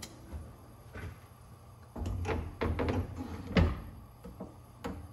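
Kitchen cabinet being opened and shut, with knocks and clatter. There is a cluster of them starting about two seconds in, and the sharpest knock comes about three and a half seconds in.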